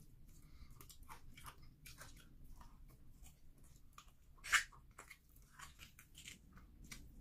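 A person biting and chewing meat from egusi soup with open, wet mouth smacks and small clicks, and one sharper, louder crunch a little past halfway.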